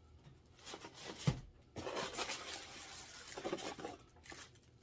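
Plastic packaging wrap crinkling and rustling as it is handled for about two seconds, after a single sharp knock about a second in.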